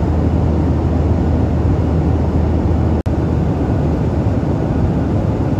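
Airliner noise: a steady, loud rush with a low drone underneath, broken by a split-second cut about three seconds in.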